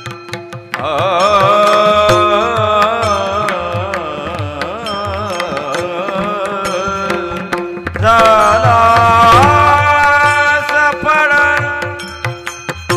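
Marathi Warkari devotional song sung by a male voice in long, wavering, ornamented phrases over a steady drone and percussion. The voice breaks off briefly just before the middle, then comes back louder.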